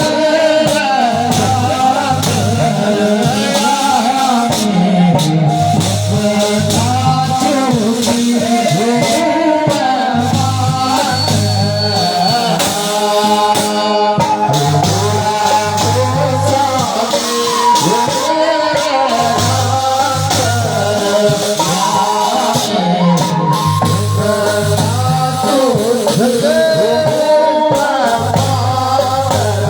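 A Himachali song performed with singing and instruments over a steady, pulsing bass beat.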